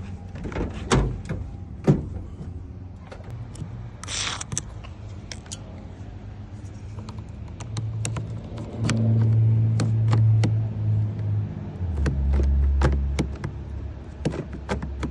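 A key clicking and rattling in a car's lock and ignition, with a short hiss about four seconds in. A low motor hum comes in past the middle and runs for several seconds.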